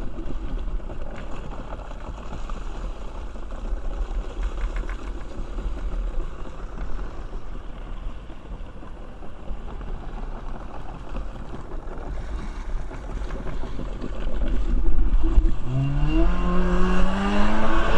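Kawasaki 550 stand-up jet ski's two-stroke twin running slowly on the water, then about fifteen seconds in it is throttled up and the engine note climbs as the ski accelerates.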